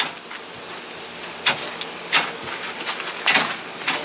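Plastic food containers being carried and handled: several short rustles and scuffs over a faint steady hiss.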